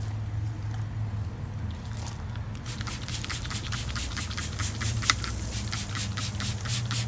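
Trigger spray bottle of water spritzing beef short ribs on the smoker grate: a rapid run of short sprays, about four a second, starting a few seconds in. A steady low hum runs underneath.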